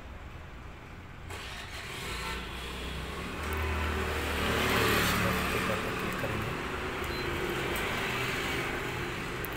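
Canon imageRUNNER ADVANCE 4245 copier whirring as it starts up after being switched on: its motors and fans start a little over a second in, grow louder to a peak around the middle, then run steadily while the machine initialises.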